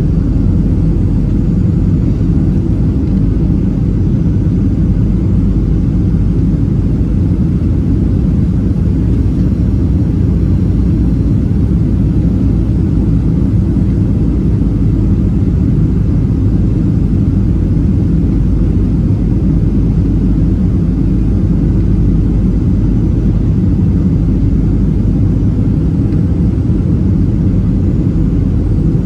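Steady low rumble of a Boeing 737-700's CFM56-7B jet engines and rushing air, heard inside the passenger cabin during the descent to land.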